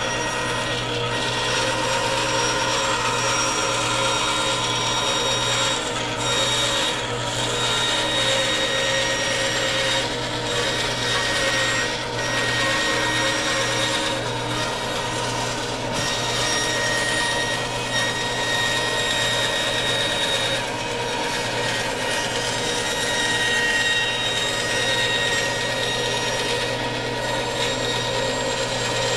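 Benchtop band saw running steadily, its blade cutting through a wooden board that is pushed through by hand.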